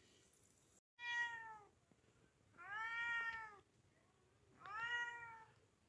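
Cat meowing repeatedly: three meows a little under two seconds apart, each rising and then falling in pitch.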